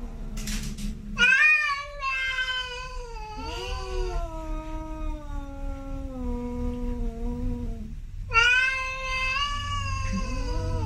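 Male cat caterwauling: two long, drawn-out yowls. The first lasts about seven seconds and wavers slowly down in pitch. The second starts about eight seconds in.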